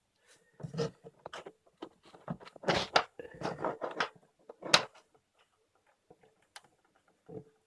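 Hands handling a phone, charger cable and micro USB adapter: irregular small clicks, taps and rustles, busiest in the first five seconds, then a sharp click and a soft knock near the end.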